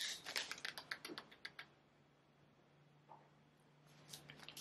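A quick run of light, sharp clicks, about a dozen in the first second and a half, then a faint steady low hum, with a few more clicks starting near the end.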